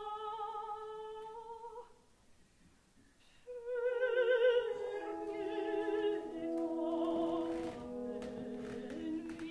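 Operatic soprano singing with vibrato: a long held note slides upward and stops about two seconds in, and after a short pause she comes in again strongly about three and a half seconds in, with the orchestra playing held notes beneath her.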